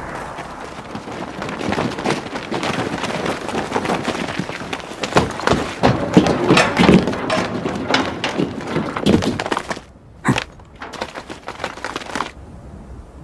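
Action-film sound effects: a dense clatter of knocks and thuds over a rushing noise as armed soldiers deploy. It breaks off near ten seconds in, then comes one sharp hit and a few more knocks, stopping about twelve seconds in.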